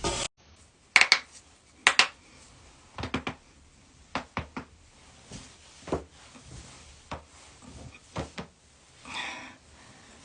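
Joints cracking during manual adjustments: a series of sharp pops, the loudest coming as two quick pairs about one and two seconds in, then smaller clusters of cracks and single pops spread through the rest.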